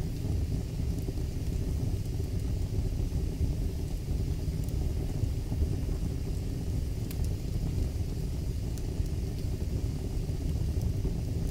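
Wood fire burning in a fireplace: a steady low rumble with a few faint crackles here and there.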